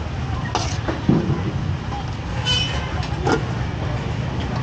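Busy market background: a steady low rumble with a few sharp clinks and knocks, one of them ringing briefly like struck metal.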